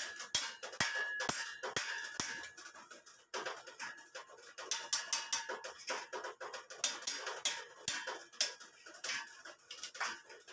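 Metal clinking and scraping as a steel rod and pliers knock against a square steel tube: a string of sharp metallic knocks, some followed by a brief ringing tone.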